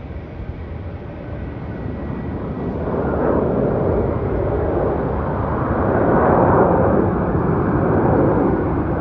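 Jet airliner's engines roaring as it passes, the sound swelling from about three seconds in and loudest near the end.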